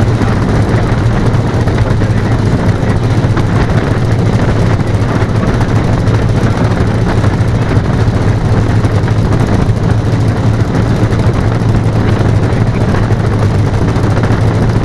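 Engines of a radio-controlled Boeing B-17G scale model running steadily, a close, even drone with a strong low hum.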